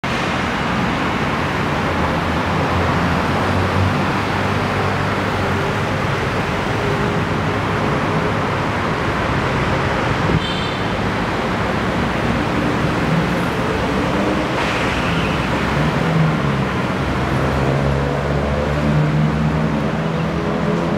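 Steady city road traffic: car and bus engines and tyre noise from a busy street, with an engine note rising in pitch near the end as a vehicle speeds up.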